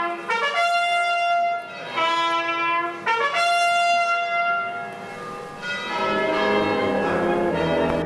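A solo trumpet sounding a slow ceremonial call in long held notes. About six seconds in, lower brass come in under it with a fuller band sound.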